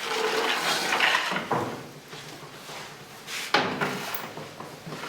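Scraping and knocking of bakery tools and equipment, with a sharp knock about three and a half seconds in.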